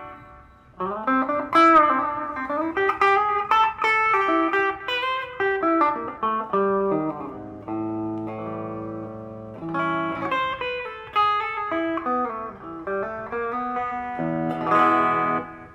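Electric guitar played through an Artec G10x 10-watt practice amp: a run of single notes with a bend about two seconds in, a chord held for a couple of seconds in the middle, then more notes and a strummed chord near the end.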